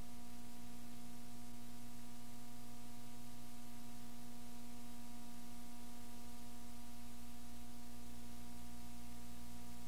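Steady electrical buzz on one pitch with its overtones, over a low mains hum and constant hiss; it stays unchanged throughout.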